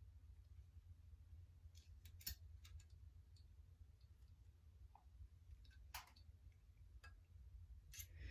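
Near silence under a low steady hum, with a handful of faint, sharp clicks of a small hex key and metal screws being handled while snugging screws into a rifle chassis.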